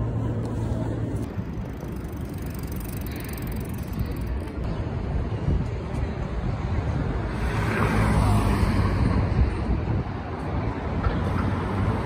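City street traffic: a steady wash of cars going by, with one vehicle passing closer and louder about two-thirds of the way through.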